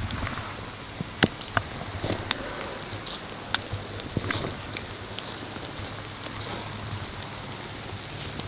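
Steady patter of rain, broken by scattered sharp clicks and knocks from camera handling and movement through wet grass.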